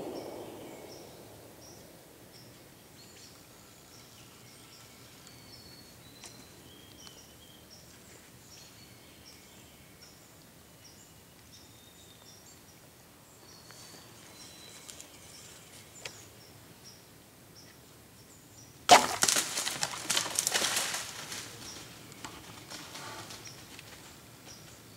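A hunting bow shot at a deer about nineteen seconds in: a sudden sharp crack, then about two seconds of crashing and crackling through dry leaves and brush as the hit deer runs off. Before the shot, quiet woods with faint bird chirps.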